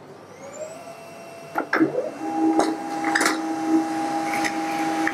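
Samsung ML-2161 laser printer starting a print job: a rising whine as its motors spin up, several clicks as the paper is picked and fed, then a steady hum of the running mechanism from about two seconds in.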